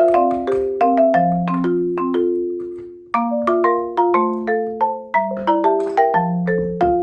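Background music: a light melody on marimba or similar mallet instrument, notes struck at an even pace, fading to a brief pause about three seconds in before the tune starts again.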